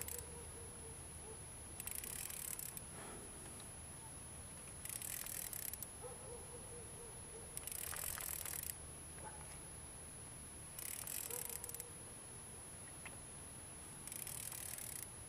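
Fishing reel buzzing in short spurts of about a second, every two to three seconds, while a hooked hybrid striped bass is reeled in and pulls against the rod, with a faint steady high-pitched whine underneath.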